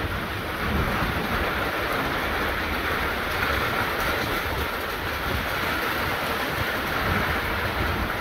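Light rain falling steadily on bare dirt ground, with wind buffeting the microphone in an uneven low rumble.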